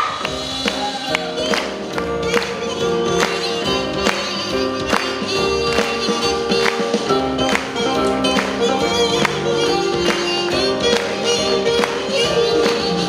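Korean traditional (gugak) music accompanying a song-and-dance piece: held melodic lines over a steady beat of sharp strokes, a little under one a second.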